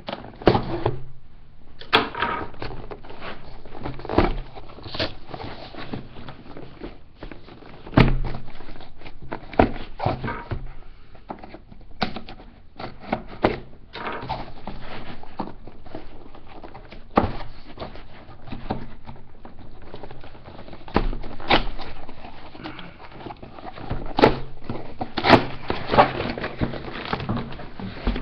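Cardboard box and packaging being handled and opened: rustling and scraping with scattered knocks and thuds.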